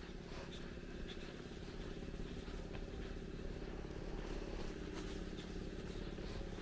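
A motor running steadily with a low, even hum, over outdoor background noise and a few faint ticks.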